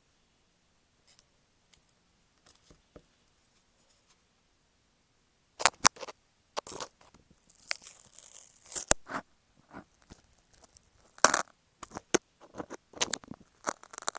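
Near silence for about five seconds, then irregular crackly scratches and taps on masking tape stuck over an Apple EarPods microphone, made right at the mic.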